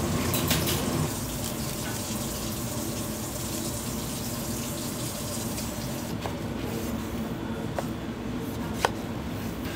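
Water running steadily from a kitchen tap into a sink, with a few light clicks, the sharpest near the end.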